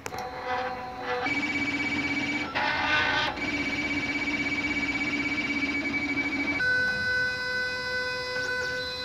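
3D printer stepper motors whining in steady pitched tones, the pitch jumping to a new note every second or few as the print head changes moves.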